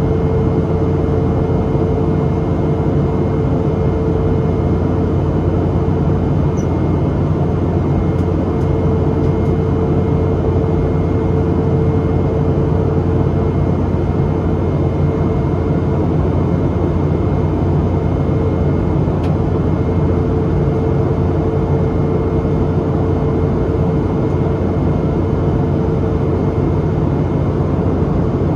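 Cabin noise of a Boeing 717-200 in flight, heard from a seat beside its rear-mounted Rolls-Royce BR715 turbofan: a loud, steady engine drone with a deep rumble and a constant hum.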